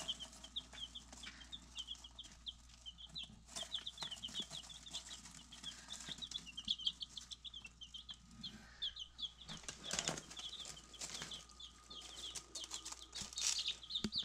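Baby chicks peeping in a brooder: a steady stream of short, high, slightly falling peeps, several a second. Occasional rustling in the pine-shaving bedding, strongest about two-thirds of the way through.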